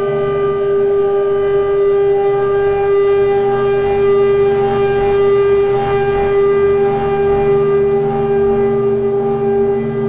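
Electronic drone from a live Lyra-8 synth rig with Noise Rumble, T-Resonator and Black Hole effects: one steady held tone with stacked overtones above it. A hissing noise wash swells a little around the middle.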